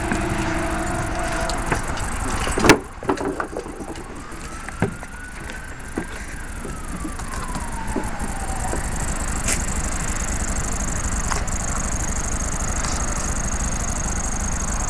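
Steady rumble of a passing train, its two-note horn trailing off about a second in, with a sharp knock a little later. In the middle, one faint long dog howl rises and then slowly falls, and a high steady insect buzz joins about halfway.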